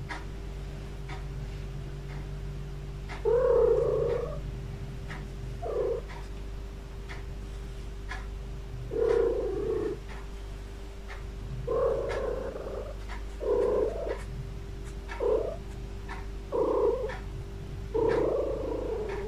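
Domestic cat giving short, low yowls, about eight of them, each under a second long and spaced a second or more apart.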